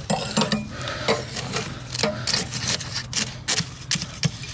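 Quick, irregular clicks and light clatter of objects being handled, several a second, over a faint steady low hum.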